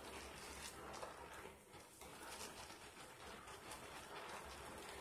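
Faint wet squishing and crackling of thick soap lather as hands squeeze and knead a foamy mesh bath pouf, in irregular squelches with a short lull a little under two seconds in.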